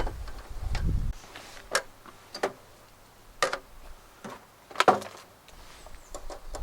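A series of sharp knocks and clacks at uneven intervals of about a second, some with a brief ring.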